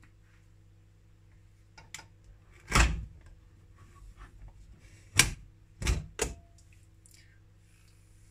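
Stainless-steel pressure cooker being opened: a few sharp metallic clanks and scrapes as its lid is worked loose and lifted, the loudest a little before the middle and a quick group of three a couple of seconds later.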